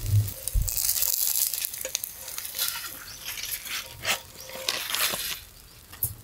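Minari jeon (Korean water dropwort pancakes) frying in oil in a pan, sizzling and crackling. The sizzle drops away about five and a half seconds in.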